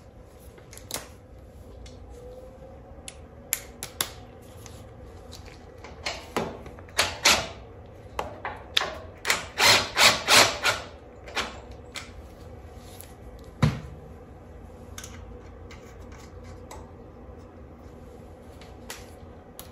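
Metal clicks, clinks and scrapes of bolts and a hand tool being worked into a rear differential brace, with a busier run of quick strokes around the middle and a single knock later on.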